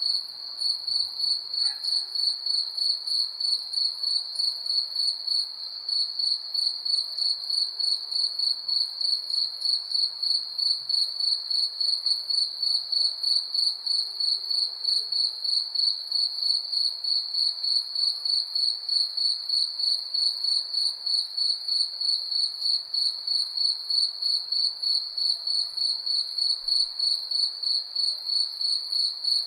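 Crickets chirping, one high-pitched chirp repeated steadily a few times a second, over a faint background hiss.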